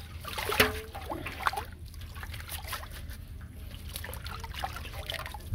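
Water splashing and sloshing in a metal basin as hands swish a snake's coils through it, with irregular splashes and trickles, the sharpest about half a second in.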